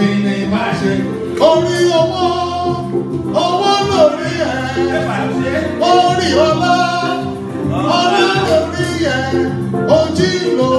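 Band music with a singer: sung phrases that rise and hold, over a steady bass line.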